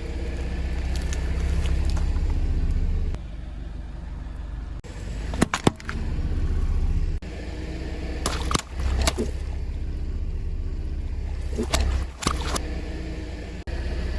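Car driving with a steady low rumble from its engine and tyres, broken by sharp cracks and crunches as its wheels crush objects: two close together about five seconds in, then several more singly toward the end.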